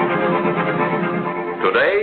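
Film-score background music with held, sustained chords.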